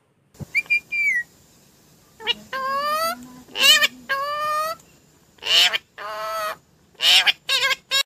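Indian ringneck parakeet calling loudly, about six calls in a row, the first a short falling whistle and several later ones drawn out for about a second with a wavering pitch. A brief wing flap comes just before the first call.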